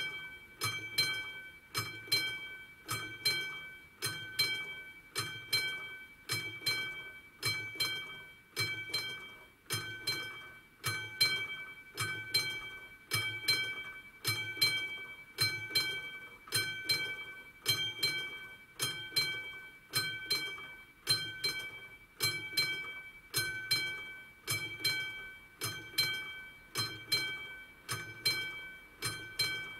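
Railway level-crossing warning bell ringing at a steady pace: each stroke rings out and dies away, repeating evenly. It signals that the crossing is closed for an approaching train.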